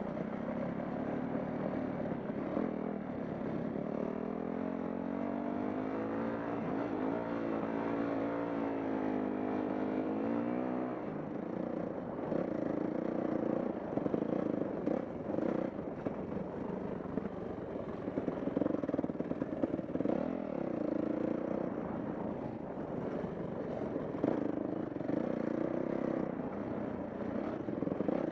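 Dirt bike engine running under way, its pitch climbing and holding for several seconds, then breaking off about eleven seconds in into uneven on-and-off throttle with clattery spikes.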